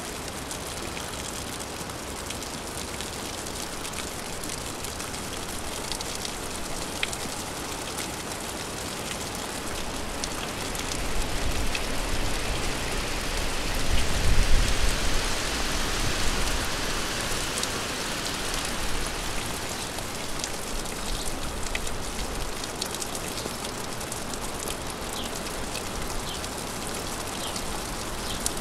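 Steady rain falling on surfaces, with individual drops ticking now and then. It swells louder for several seconds about halfway through, with a brief low rumble at the peak.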